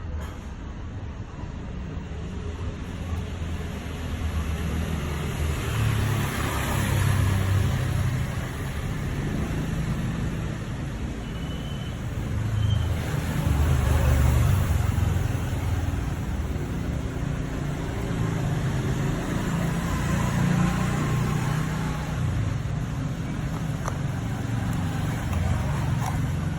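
Low rumbling background noise with a hiss above it, swelling and easing in slow waves, with a couple of faint ticks near the end.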